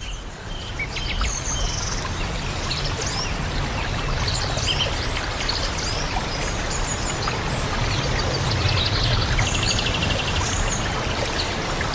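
Steady rush of flowing water with small birds chirping and calling over it, and a short rapid trill about nine seconds in.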